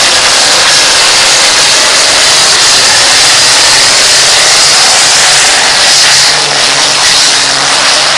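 John Deere farm tractor's diesel engine running flat out under heavy load as it drags a pulling sled, a loud, steady roar.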